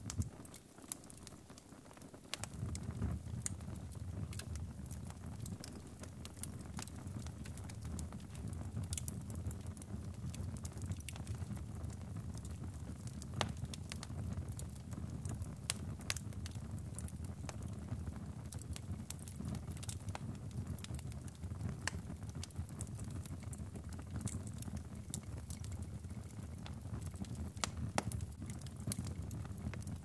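Wood fire burning in a fireplace: a steady low rumble of flames with scattered sharp crackles and pops from the burning wood. The low rumble drops away at the start and comes back about two seconds in.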